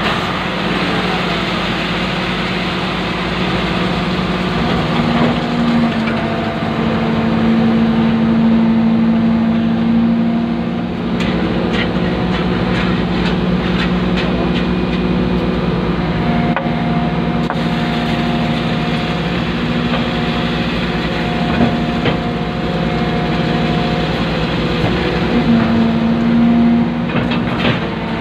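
Excavator's diesel engine and hydraulics running under load, heard from inside the cab. A higher hum comes and goes in stretches as the boom and bucket are worked, with a few light knocks.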